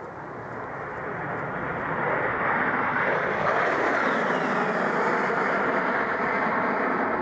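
Fairchild Republic A-10 Thunderbolt II jet flying past: the roar of its twin turbofan engines grows louder over the first two seconds and then holds steady, with a high whine that drops in pitch about four seconds in.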